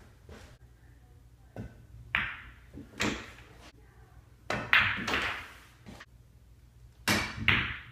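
Pool shots in a 9-ball run: sharp clacks of the cue tip on the cue ball, balls knocking together and balls dropping into the pockets, in about four groups of knocks a second or two apart.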